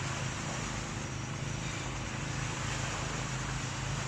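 Ocean waves washing steadily on the shore, with a steady low hum underneath.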